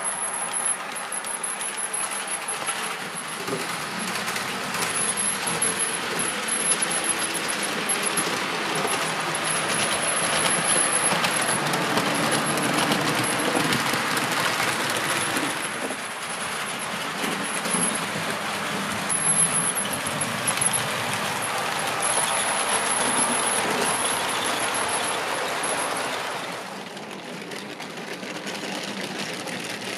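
Model train running along the track: a continuous metallic clatter of wheels on the rails with a faint high whine, swelling as it passes and dropping away near the end.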